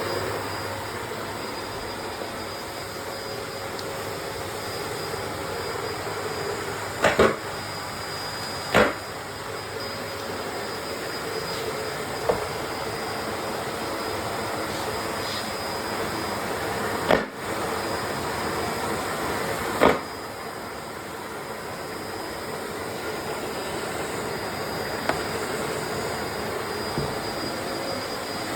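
Bosch BGS21X320 bagless vacuum cleaner running steadily, a constant rushing hum with a faint whine. A few sharp knocks cut through it, about four over the stretch.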